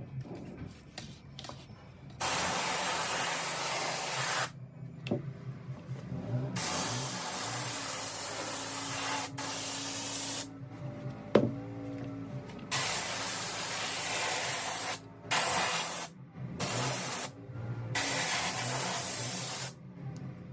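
Compressed-air gravity-feed spray gun hissing in a series of bursts, each lasting from under a second to about four seconds, with short pauses between. A few light handling clicks come before the first burst.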